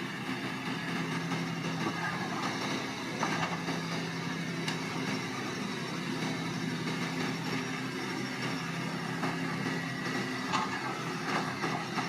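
Heavy diesel engine of a bulldozer running steadily at a constant pitch, with a few sharp metallic knocks scattered through it.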